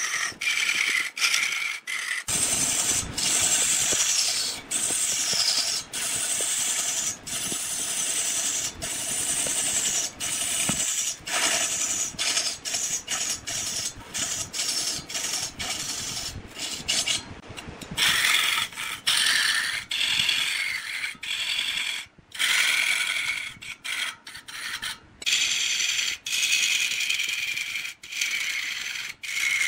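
Turning tool cutting into wood spinning on a lathe: a continuous scraping hiss with steady high ringing tones, broken by many short breaks.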